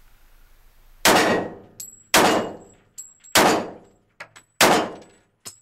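Four pistol shots from a Smith & Wesson E-Series 1911, about a second apart, each echoing off the concrete walls of a small indoor range. Lighter metallic clinks fall between and after the shots.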